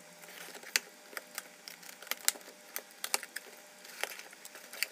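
Cardboard shipping box being opened by hand: packing tape and cardboard crackling and clicking in a quick, irregular run.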